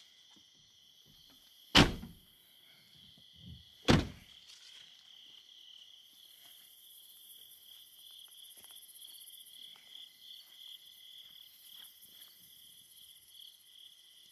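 Pickup truck door slammed shut twice, two heavy thunks about two seconds apart, over a steady chorus of crickets.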